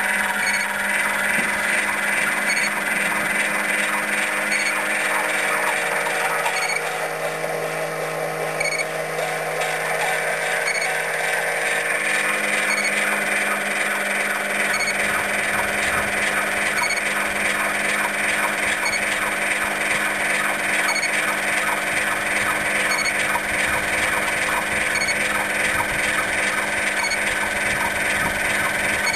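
Steady, loud mechanical running noise: a hiss with several held tones over it. About halfway through, a low rumble comes in and one of the tones drops away.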